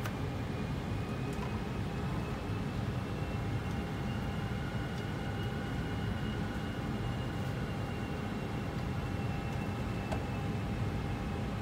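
Steady cockpit rumble of an Airbus A320 flight simulator on approach: simulated engine and airflow noise, with a faint high engine whine that slowly rises and then eases back.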